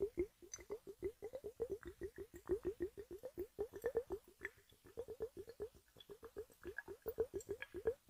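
Rapid, irregular soft plopping, several a second, from a water-filled balloon with bubbling contents pressed against an earbud microphone, imitating rain. Each plop is short and dips slightly in pitch.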